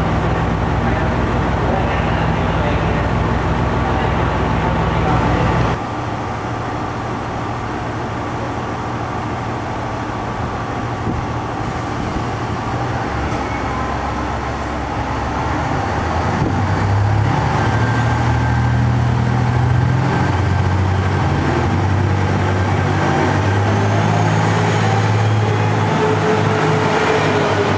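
Train engine running at the station: a steady low drone that drops in level about six seconds in, then from about sixteen seconds climbs in steps with a rising whine as the train powers up.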